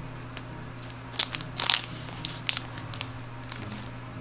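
Trading cards and crinkly plastic being handled: a handful of short crinkles and clicks around the middle, over a steady low hum.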